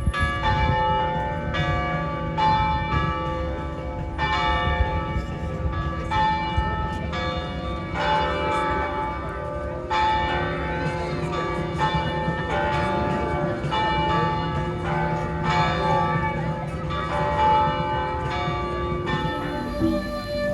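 Church bells pealing: several bells struck in turn, about one or two strikes a second, each ringing on, over a low background rumble.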